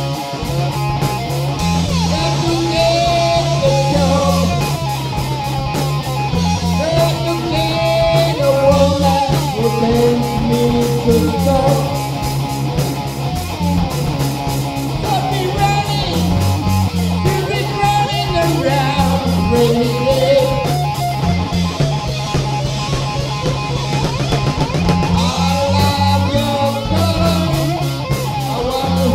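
Hard rock music: guitar over a drum kit and a steady bass line.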